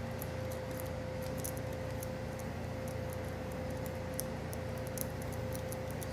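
Lock pick and tension wrench working inside a Master Lock No. 5 pin-tumbler padlock: faint, irregular small metal clicks and ticks as the pins are worked, over a steady background hum. The lock is resisting, which the locksmiths put down to a hidden extra pin.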